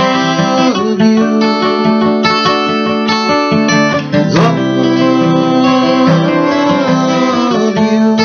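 Acoustic guitar with a capo on the neck, playing an instrumental passage of chords. The chord changes about a second in and again near the end.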